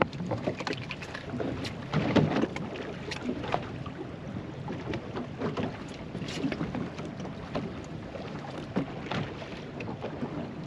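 Irregular knocks and taps on a small fishing boat, over water lapping at the hull.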